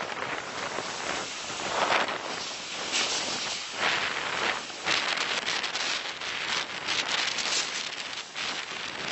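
Typhoon Haiyan's wind and heavy rain, a dense rushing noise that swells and falls in gusts.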